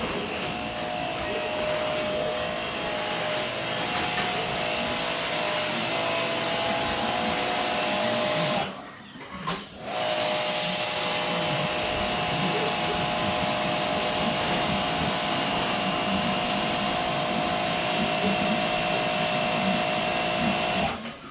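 A motor-driven machine running steadily with a steady whine, stopping for about a second and a half about nine seconds in, then starting again and cutting off suddenly near the end.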